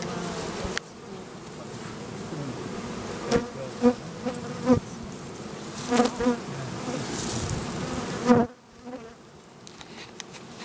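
Honey bees buzzing around an open Langstroth hive as a steady hum. Several louder swells as bees fly close past, and the hum drops quieter just after eight seconds in.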